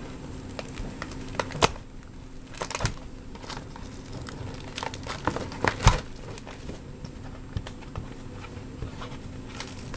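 Plastic shrink wrap on a sealed trading-card hobby box crinkling as the box is handled, with irregular light taps and clicks. The loudest clicks come about a second and a half in and again near six seconds.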